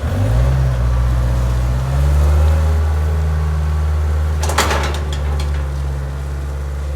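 A quad (ATV) engine starting, its pitch climbing briefly before settling into a steady idle. A short sharp clatter sounds about four and a half seconds in.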